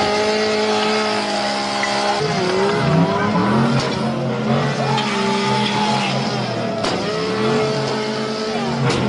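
Two-stroke chainsaw running at high revs, then dropping lower in pitch and wavering about two seconds in as the chain cuts into material.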